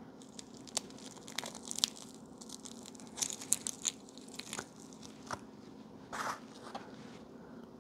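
Clear cellophane wrap being peeled and torn off a bundle of DIP SRAM chips by hand, in a run of irregular sharp crinkles and crackles, busiest between about one and a half and four seconds in, with a few more near the end.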